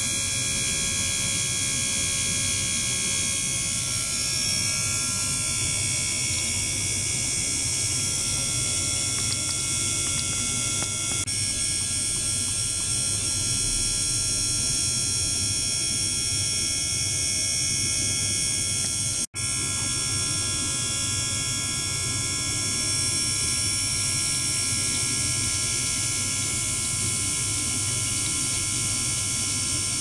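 Ultrasonic transducer system running in a water tank: a steady electrical hum and hiss with several faint high whining tones held throughout. The sound drops out for an instant about two-thirds of the way through.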